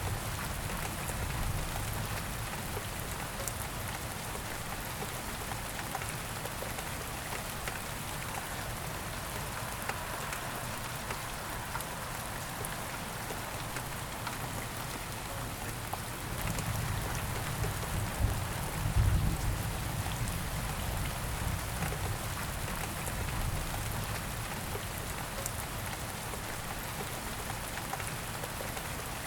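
Steady rain falling and pattering on surfaces. A deeper low rumble swells for a few seconds past the middle.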